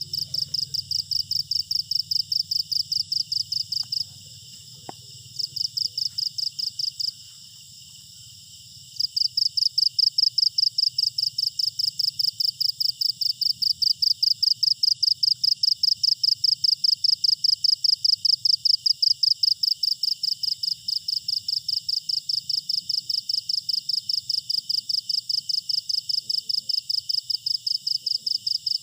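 Cricket chirping: a fast, regular train of high-pitched pulses that breaks off twice, briefly about four seconds in and for about two seconds around seven seconds in, then runs on steadily.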